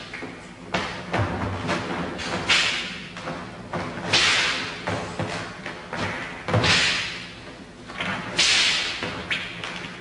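Repeated whooshing swishes of a swung broadsword and loose clothing, with a couple of heavy foot stamps thudding on the floor, as a kung fu form is performed.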